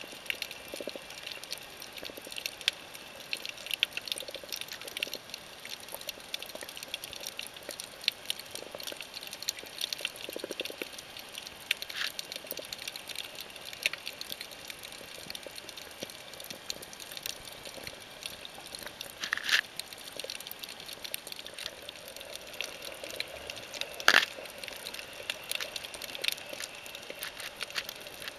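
Underwater ambience recorded with the camera below the surface: a continuous crackle of many small clicks over a hiss of water, with a few louder clicks, the loudest about 24 seconds in. A faint low hum joins in during the second half.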